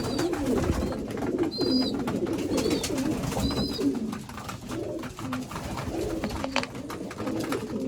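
Several domestic pigeons cooing continuously in a loft, with a few short high chirps in the first half.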